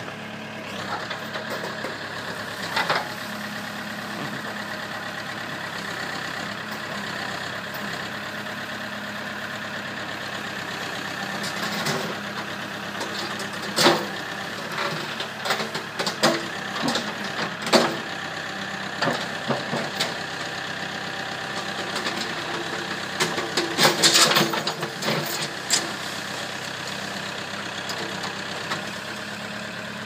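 Backhoe loader's diesel engine running steadily as its digging arm tears a tree out by the roots, with sharp cracking and knocking of wood and roots at intervals and a dense burst of them about four fifths of the way through.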